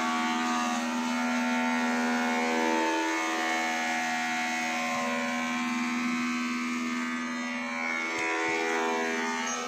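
Background music of sustained, drone-like held notes that change pitch every few seconds.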